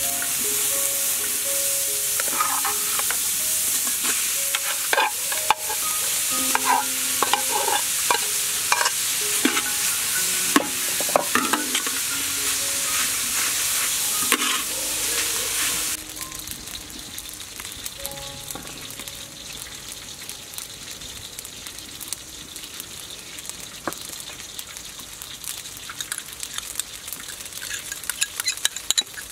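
Diced vegetables and rice sizzling in a hot wok while a metal spatula stirs and scrapes against the pan with scattered clicks. The sizzle drops to a much quieter level about halfway through.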